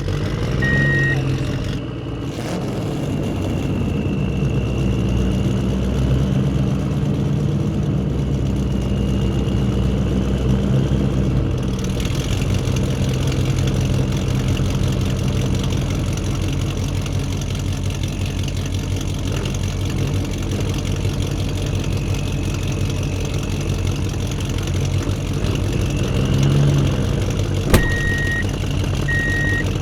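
Heavy truck engine running steadily, swelling up for several seconds about two seconds in. A reversing alarm beeps in the first second and again near the end, and there is one sharp click just before the beeping resumes.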